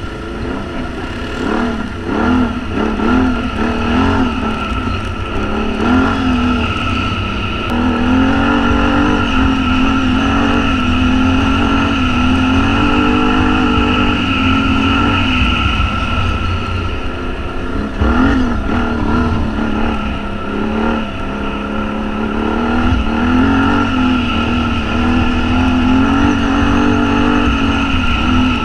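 Can-Am Renegade 1000 XXR's V-twin engine running hard on a mud trail, heard from on board the ATV; its note rises and falls over and over as the throttle opens and closes, over a steady low rumble and a steady high whine.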